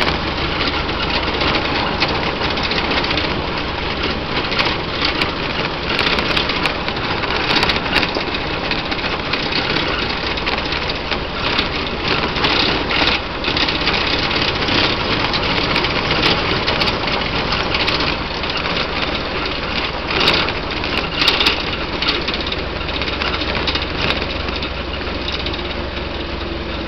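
1927 Ford Model T's four-cylinder side-valve engine running steadily while the car drives along a gravel road, with tyre and road noise and frequent short knocks and clatters.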